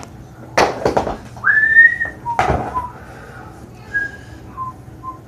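A man whistling: one rising note held for about half a second, then a few short notes. Two short, loud hissing bursts come early and near the middle.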